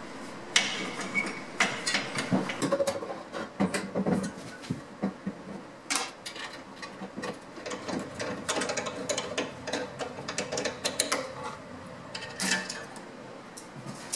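Irregular clicks, taps and light metallic clanks of hand tools and metal parts being handled while assembling a band saw, the knocks coming in quick clusters with short pauses between them.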